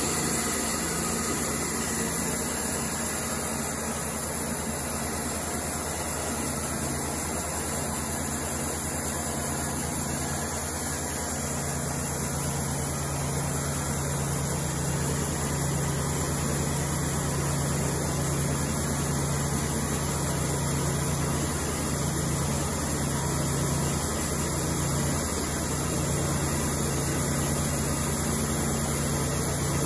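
Cook's Saw MP-32 thin-kerf bandsaw mill sawing through a log: its engine runs steadily under load while the band blade makes a continuous hiss of cutting.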